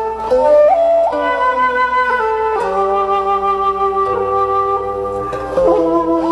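Slow background music with a flute-like melody of long held notes that slide between pitches, over sustained chords.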